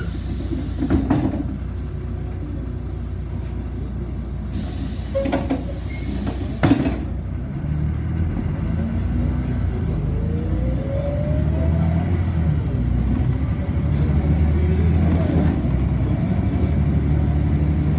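City bus riding, heard from inside: a steady low rumble with a few sharp knocks and rattles in the first half. About halfway through, a louder low engine drone sets in with a faint rising whine.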